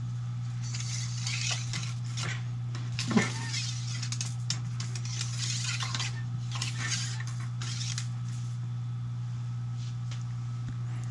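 Cleaning rod with a dry patch pushed in and out through the bore of a 6.5mm Creedmoor bolt-action rifle barrel, wiping out the solvent. It makes repeated rubbing and scraping strokes with light metallic clicks, one sharp click about three seconds in, over a steady low hum.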